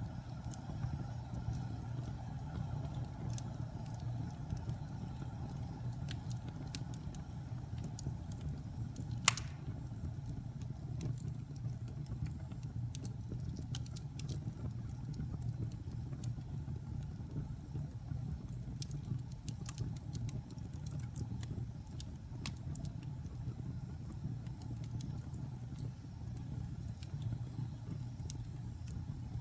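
Wood fire burning in a fireplace: a steady low rumble with scattered crackles, and one loud pop about nine seconds in.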